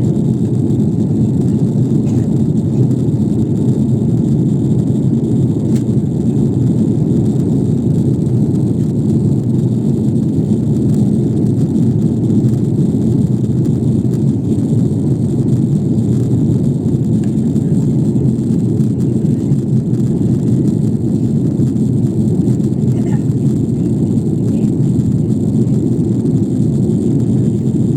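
Steady low rumble of an airliner cabin in flight, engine and airflow noise holding even without change.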